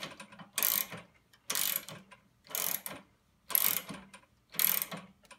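Socket ratchet wrench tightening a half-inch nut: five ratcheting strokes, each a short run of clicks, about a second apart.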